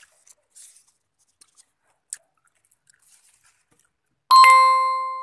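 A single loud, bright chime rings out about four seconds in and fades away over a second or so. Before it there are only faint rustles and small clicks of hands among the vine leaves and grapes.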